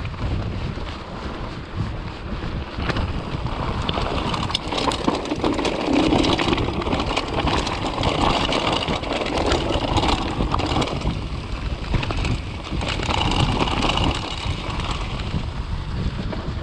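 Mountain bike ridden over a rocky trail: wind buffeting the microphone, tyres rolling over stones and the frame and parts rattling in many short knocks.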